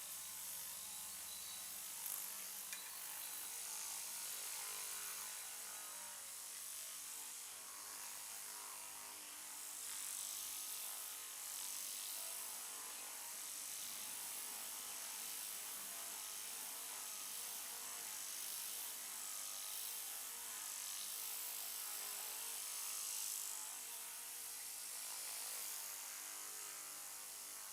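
Hands rubbing and kneading hair and scalp in a head massage: a steady hiss of friction that swells and fades every few seconds.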